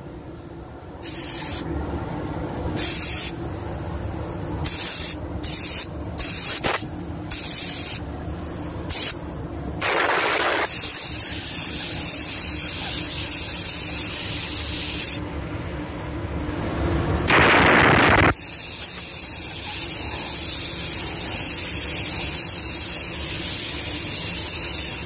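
Automotive paint spray gun hissing as clearcoat is sprayed onto a car body, switched on and off in short bursts at first, then held in longer passes, with the loudest burst a little past halfway.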